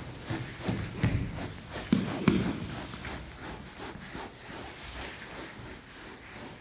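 Scattered knocks and thuds, the loudest a pair about two seconds in, thinning out to faint taps.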